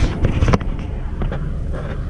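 Low, uneven rumble of wind buffeting the microphone of a dashboard camera in a slow-moving car, with two sharp knocks at the start and about half a second in.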